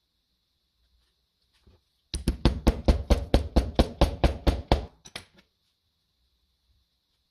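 A quick, even run of about fourteen sharp hammer taps, roughly five a second, followed by a couple of lighter single taps.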